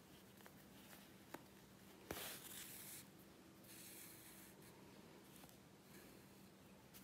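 Near silence with faint rustling of embroidery floss drawn through a knitted doll's face: two soft swishes, about two and three and a half seconds in, with a small click just before the first. A faint low hum runs underneath.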